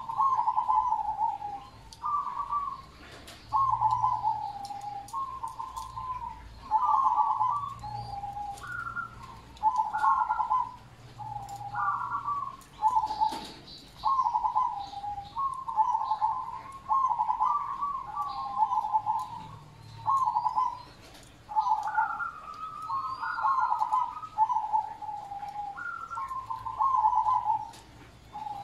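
Zebra dove (merbok) singing: a long run of short, rapid cooing phrases, one every second or two, several of them opening on a higher note.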